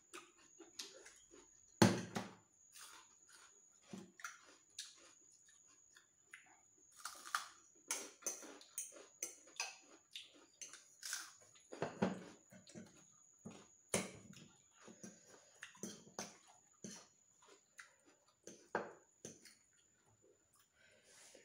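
Eating sounds of noodles being eaten: close mouth sounds of chewing and smacking, with spoons and forks clicking on ceramic bowls. A sharper knock comes about two seconds in.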